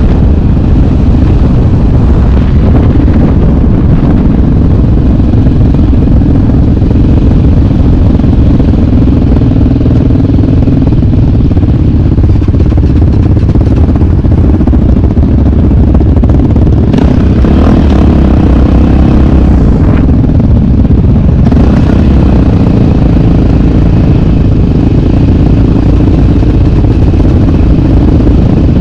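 Yamaha single-cylinder sport ATV engine running loud and steady while the quad is ridden, with a short stretch of brighter, harsher sound about two-thirds of the way through.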